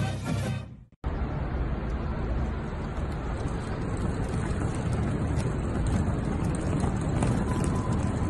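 Music fading out about a second in. Then a steady rumble of a wheeled backpack's wheels rolling across a hard floor as it is pulled along with a puppy riding on it.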